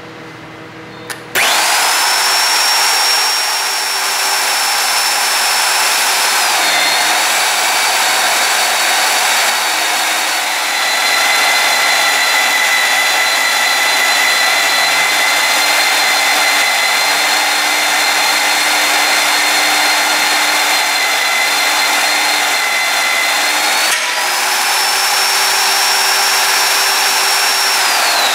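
AGP SMD351 magnetic drill switched on with a click about a second in: its motor starts at once with a high whine. After a few seconds the whine drops in pitch as the annular cutter bites into the steel plate and cuts under load. About four seconds before the end it rises back to the no-load pitch as the cutter comes free of the cut, then begins to wind down at the very end.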